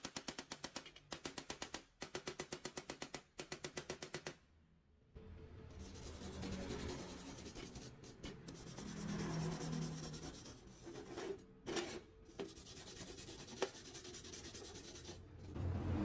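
Small hammer tapping rapidly on welded steel plates in short runs for about four seconds, chipping slag off the stick welds. After a brief pause, a brush scrubs the welds in a long rough rubbing with a few sharp knocks.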